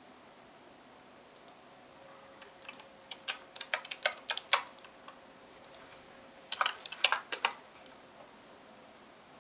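Computer keyboard keystrokes and mouse clicks in two quick bursts, one about three seconds in and another near seven seconds, as a coordinate is selected, copied and pasted.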